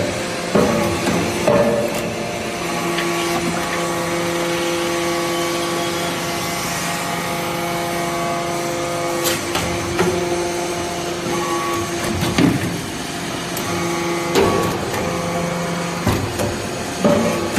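Hydraulic pump and motor of a metal shavings baler running with a steady hum, broken by sharp metallic knocks and clanks every few seconds.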